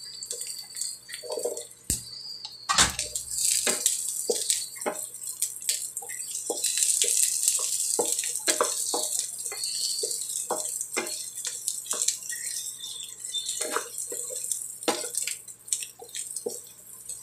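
Oil sizzling in a wok as ingredients are sautéed, with many short clicks and pops from the spatula and spitting oil. The sizzle gets sharply louder about three seconds in.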